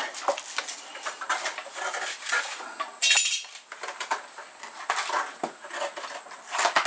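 Cabbage palm (swamp cabbage) layers snapping and tearing as they are peeled by hand off the heart: irregular sharp clicks and cracks, with one longer tearing sound about three seconds in.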